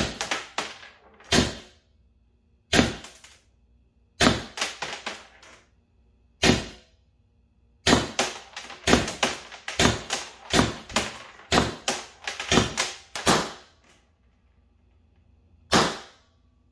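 Valken M17 magazine-fed paintball marker firing single semi-auto shots on compressed air, each a sharp pop. The shots come irregularly at first, then in a quicker run of about a dozen, with one more near the end. The string includes misfires, with the magazine not advancing the balls reliably.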